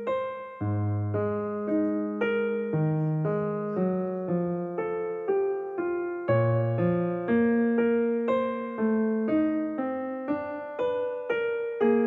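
Background music: a gentle piano melody of struck notes, about two a second, each fading before the next.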